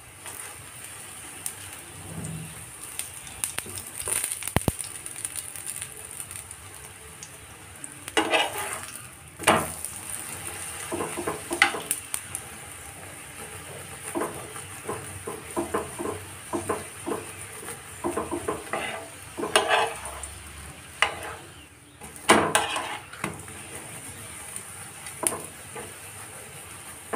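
Methi paratha frying in desi ghee on an iron tawa, sizzling steadily, while a steel spoon spreads the ghee, scraping and tapping against the paratha and the pan in many short clicks.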